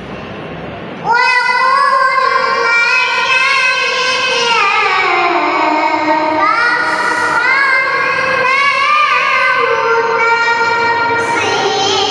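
A young girl reciting the Qur'an in melodic tilawah style. Her high voice comes in loudly about a second in and carries long held notes with ornamented turns.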